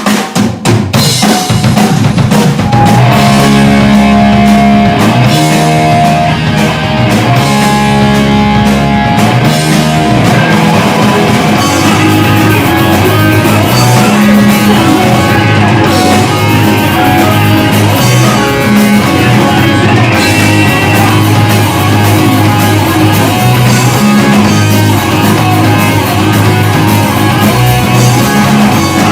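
Recorded hardcore band track: a drum kit and electric guitars with bass playing loud and dense. It kicks in abruptly at the start.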